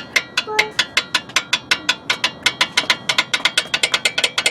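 Worn front sway bar link on a 2010 Buick Enclave clicking as it is rocked back and forth, a quick run of sharp metallic clicks at about eight a second. The looseness in the link is the cause of the front-end clicking noise.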